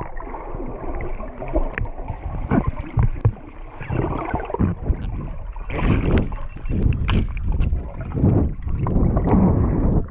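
Water sloshing and churning in irregular surges, muffled as heard through a GoPro's waterproof housing.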